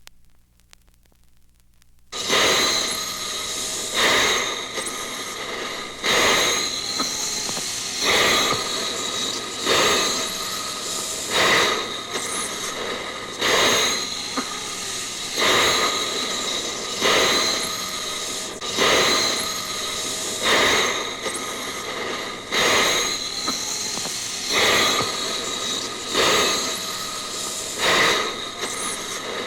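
Mechanical running noise with steady high squealing tones, starting suddenly about two seconds in and pulsing with a regular heavier stroke about every two seconds.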